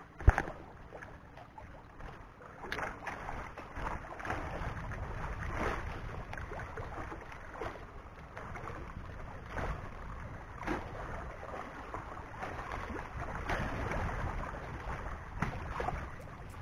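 Wind buffeting the microphone and small waves lapping against shoreline rocks, in uneven swells. There is one sharp click near the start.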